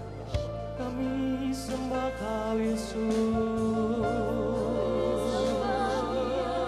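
Live worship band playing a slow song: steady bass and sustained chords with occasional cymbal swells, and a singer holding long notes with vibrato in the second half.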